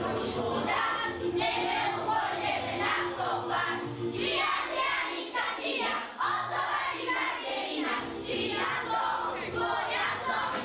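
A group of children singing together over musical accompaniment.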